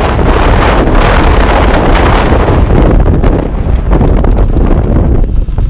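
Heavy wind buffeting on the microphone of a microlight trike landing, with its engine running underneath. The rush of wind thins out over the last couple of seconds as the aircraft slows.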